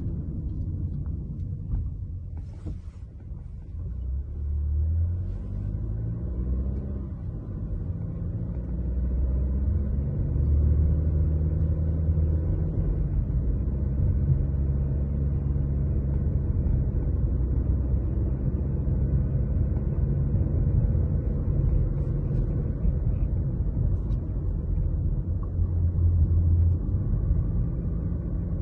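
A car being driven, its engine and road noise making a low steady rumble; the engine note rises about six seconds in as the car speeds up, then holds steady.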